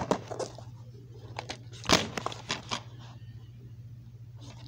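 Plastic DVD keep case being handled: a few short clicks and knocks as it is picked up and turned over, the loudest about two seconds in, over a steady low hum.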